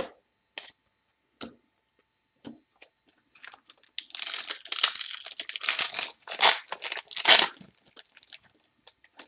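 Panini Prizm basketball card pack wrapper being torn open by hand and crinkled, a dense crackling rip lasting about four seconds, loudest near its end. A few light clicks come first.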